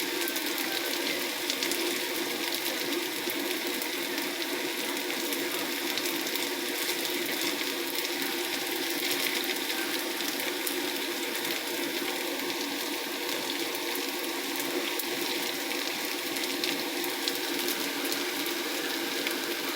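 Battered shredded-vegetable fritters deep-frying in hot oil: a steady sizzle dotted with fine crackles, over a low steady hum.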